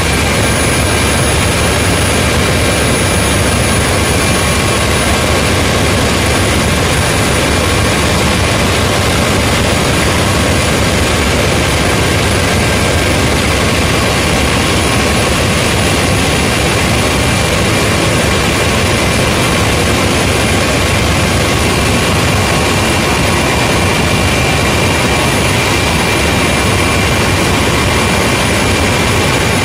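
Helicopter engine and rotor noise heard from inside the cabin in flight: a loud, steady roar with a faint high whine over it.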